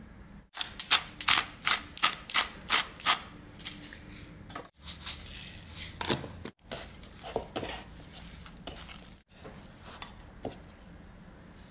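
Kitchen handling sounds over a wooden bowl of rice: first a quick run of sharp clicks and taps, then a short hissing rustle as sesame seeds are poured over the rice, then softer scattered handling sounds.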